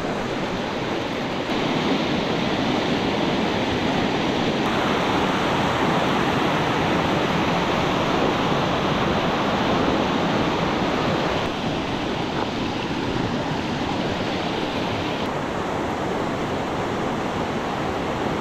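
Shallow river rapids rushing over rocks: a loud, steady wash of whitewater. Its level and tone change abruptly a few times.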